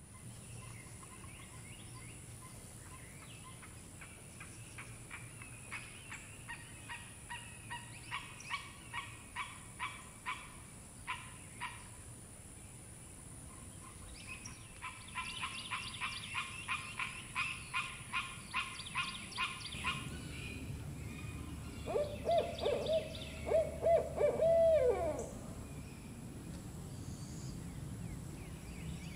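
Barred owls calling: runs of quick, cackling hoots that speed up, then a second, denser run. Near the end come a few louder, lower hoots.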